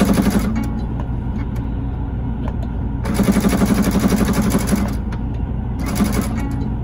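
Domestic electric sewing machine stitching, likely zigzag stitching across a seam, in short runs of rapid needle strokes: a brief run at the start, a longer one of about two seconds a few seconds in, and another brief one near the end, over a steady low hum.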